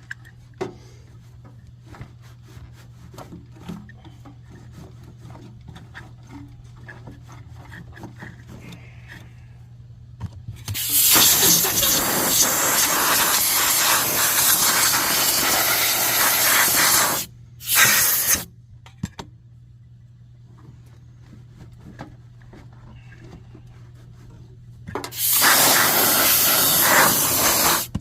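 Compressed-air blow gun blowing dirt out of the inside of a forced-air heater: one long hiss of about six seconds, a short burst just after, and another blast of about three seconds near the end, each cutting on and off abruptly. Light handling clicks come between the blasts.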